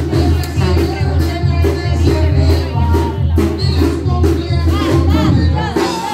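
Live Mexican tamborazo band playing: a sousaphone bass line pulsing under saxophone and brass melody, driven by the drum section's steady strokes.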